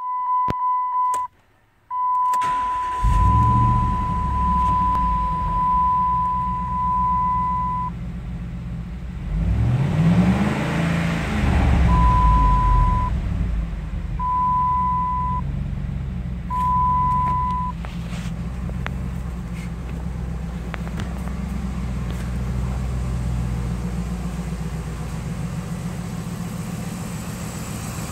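2008 Dodge Ram 1500's 4.7-litre V8 starting about two seconds in, revved once, rising and falling near ten seconds, then idling steadily. A dashboard warning chime sounds as one long tone at first, then three short chimes after the rev.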